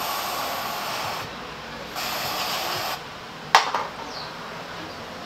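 Compressed-air blow gun hissing in two blasts of about a second each, followed by a single sharp click.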